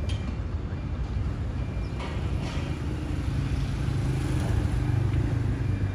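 Low, steady rumble of a passenger train's carriages rolling away down the track, swelling a little after the halfway point, with a couple of faint clicks.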